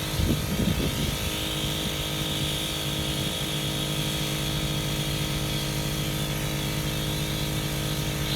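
Portable 12-volt air compressor (a Cong Rui 5.65 CFM, a clone of the Smittybilt 2781) running steadily, with a few knocks in the first second.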